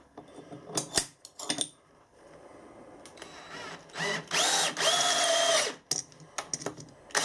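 DeWalt 18V XR cordless drill power-tapping a 5 mm thread with a spiral-cut tap: a few clicks at first, then, about four seconds in, the drill motor runs with a whine for nearly two seconds and stops. A second run starts right at the end.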